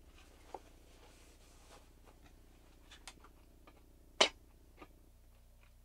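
Quiet mouth sounds of a person eating fried chicken: faint clicks and smacks while chewing, with one short, sharper smack about four seconds in.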